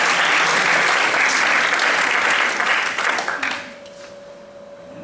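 Audience applauding, dying away about three and a half seconds in; a faint steady tone remains after it.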